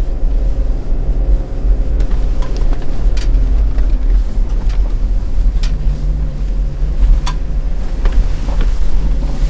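Ineos Grenadier's BMW B58 3.0-litre inline-six running under way, heard from inside the cabin as a heavy low rumble. The engine note rises a little about five and a half seconds in, and a few sharp clicks and knocks come through the drive.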